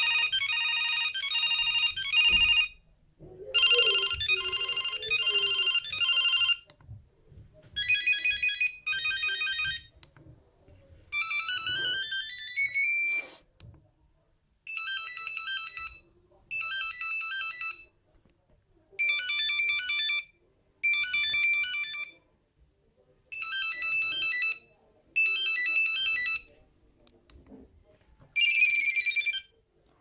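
Nokia 6310's built-in monophonic ringtones playing through the phone's small speaker: short, bright beeping melodies in phrases of two to three seconds with brief pauses between them. One has a fast rising run of notes about halfway through, and another ends in quick pitch swoops near the end.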